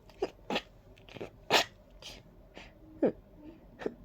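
A person with an allergy-stuffed, runny nose making a quick series of about seven short, sharp nasal sounds during a sneezing fit, the loudest about one and a half seconds in.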